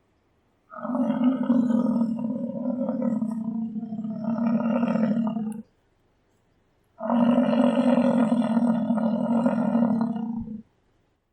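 American bison roaring: two long, deep, growling roars, the first about five seconds long and the second about three and a half, with a pause between them.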